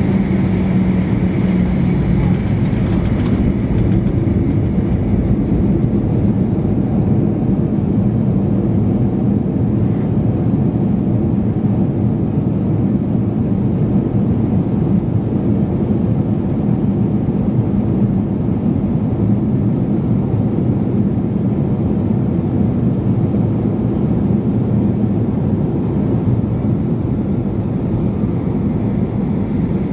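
Boeing 737-800 on its landing roll, heard from inside the cabin. A steady engine hum gives way, a few seconds in, to a sustained roar of engines and runway rumble as the jet slows on the runway. The steady engine hum returns near the end.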